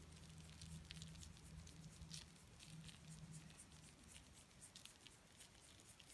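Faint patter of fine salt grains sprinkled by hand onto raw shrimp pieces on a paper towel: scattered light ticks, with a low steady hum that fades out about halfway.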